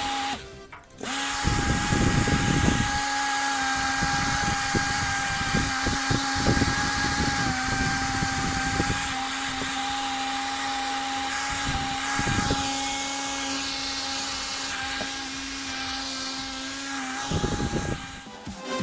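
Homemade mini table fan's small 5-volt DC motor running with a steady whine, mixed with irregular low rumbling gusts. It starts about a second in and stops near the end.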